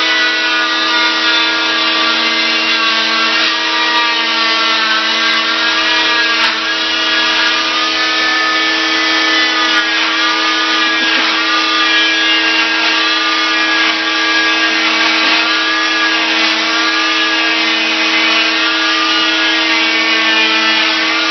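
Oscillating cast saw with its dust-extraction vacuum running steadily while cutting through an arm cast, a whine whose higher tones waver slightly in pitch as the blade works.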